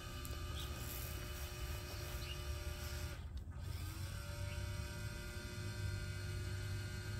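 Celestron NexStar GT telescope mount's motors whining steadily as the mount slews under hand-controller command. About three seconds in the whine cuts out for a moment, then starts again, rising in pitch before it settles.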